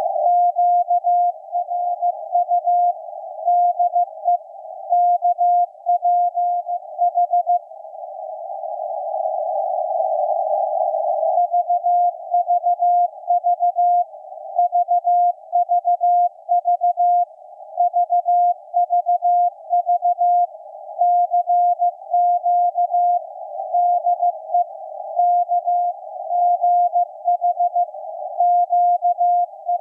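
Morse code (CW) from maritime coast station KPH received on shortwave at 12808.5 kHz: a keyed beep tone of dots and dashes over hiss squeezed into a narrow CW filter. The keying pauses for about four seconds a quarter of the way in, leaving only the filtered hiss.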